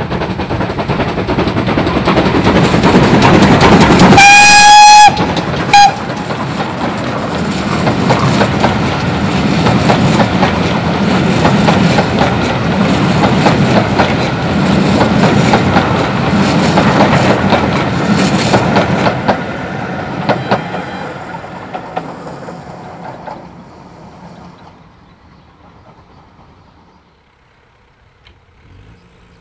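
Steam locomotive and train passing close by, with heavy exhaust beats and the clatter of wheels on rail. The whistle is blown for about a second some four seconds in, with a short second toot just after. The sound then dies away as the train goes off into the distance.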